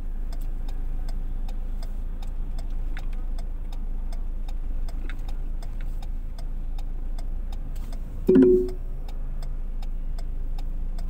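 A car's turn signal ticking steadily, about three ticks a second, over the low hum of the idling engine. About eight seconds in, a vehicle horn gives one short two-tone honk.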